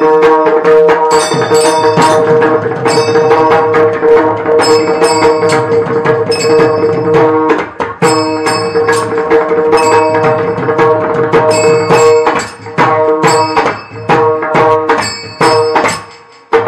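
Mridang drumming in a quick devotional kirtan rhythm over a steady held drone note, with small hand cymbals ringing on the beats. The playing breaks off briefly about eight seconds in and stops near the end.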